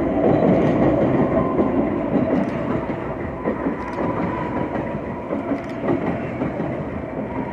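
Legacy-fleet BART train pulling into the station close by: a steady rumble of wheels on rail with light clicking and a faint high whine, easing off gradually as the train slows.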